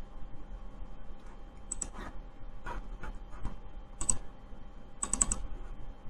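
Scattered light clicks from a computer's mouse and keys: single clicks spaced a second or so apart, then a quick run of about four near the end.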